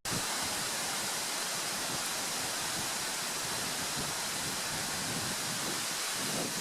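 Steady rush of a beck's water flowing over stones.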